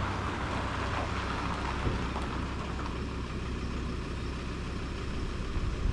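A motor vehicle's engine running steadily: a low hum under an even wash of noise.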